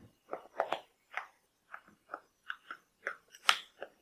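Thick, frothy gram-flour batter raised with fruit salt being poured from a glass bowl into a steel pot: a scatter of faint, irregular wet clicks and plops, about a dozen, with one sharper click about three and a half seconds in.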